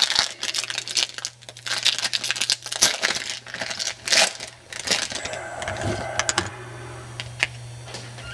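Crinkling and tearing of a trading-card pack wrapper as it is opened, with the cards being handled, busiest in the first five seconds, then a few light clicks over a low steady hum.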